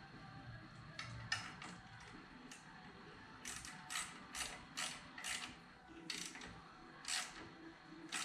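Hand ratchet wrench clicking in short bursts as it threads a new grease (zerk) fitting into a car's upper control arm. There are a few strokes about a second in, then a steadier run of back-swings about two a second from about three seconds in.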